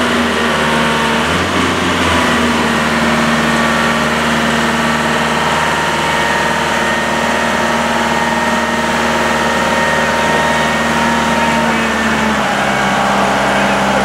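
Electric forklift's hydraulic lift pump motor running under heavy load as the mast raises a 4,000 kg block: a steady whining hum that drops slightly in pitch about twelve seconds in.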